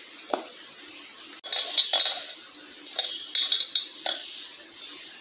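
Hand mixing damp flattened rice (poha) in a stainless steel bowl: the flakes rustle and scrape against the steel in a few short bursts, with light clinks on the bowl.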